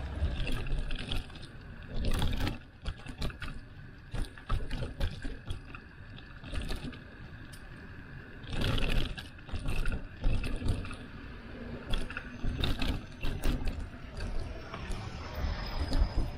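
Riding noise from a bicycle ride: wind rumbling on the microphone, with frequent clicks and knocks as the bike rolls over the road surface, and louder swells about two and nine seconds in.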